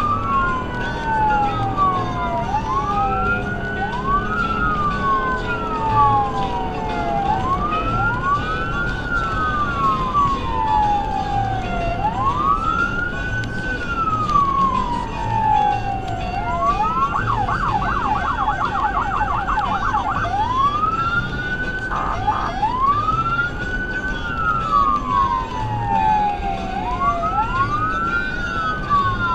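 SoundOff Signal nERGY 400 electronic siren through 100J-series composite speakers sounding a wail: slow rising and falling sweeps every few seconds. About 17 seconds in it switches for about three seconds to a fast yelp, then after a brief blip returns to the wail, over steady road noise heard from inside the cab.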